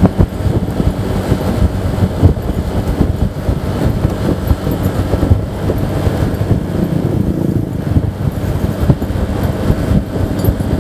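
Wind buffeting a handlebar-mounted camera's microphone on a moving Honda Vario 125 scooter, over the running of its single-cylinder engine and tyre noise at cruising speed.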